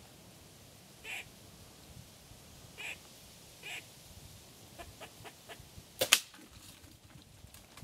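A squirrel barking: three short, spaced calls, then a run of faint clicks. About six seconds in there is a sharp double crack, the loudest sound.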